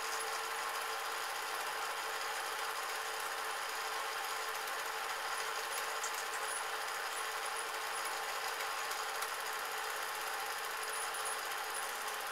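Film projector mechanism running steadily, the sound of the cine film being played back.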